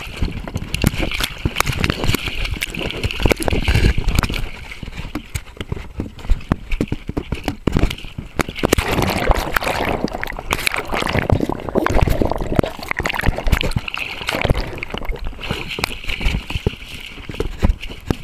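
A Treeing Walker coonhound splashing and wading through creek water, irregular sloshing and gurgling with many small knocks and scrapes, heard up close from a camera strapped to the dog.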